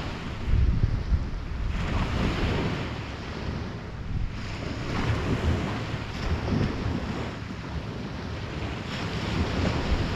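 Wind buffeting the microphone over a rush of water that swells and eases every few seconds.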